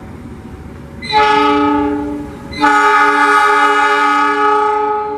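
Air horn of a KAI CC206 diesel-electric locomotive sounding two blasts of a several-note chord, a short one about a second in and then a longer one, as the train approaches the station.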